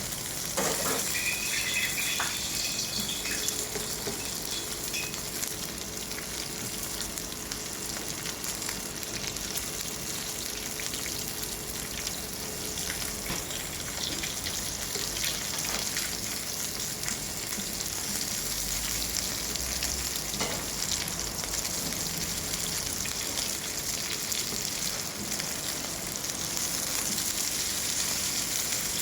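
Oysters and egg batter frying on a hot pan, with a steady sizzle. Occasional clicks sound through it, and there is a brief scraping squeal about a second in.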